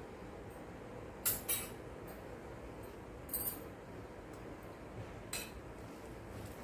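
Hand mixing a soft kabab batter in a glass bowl, with a few short, light clinks against the glass over a faint steady background.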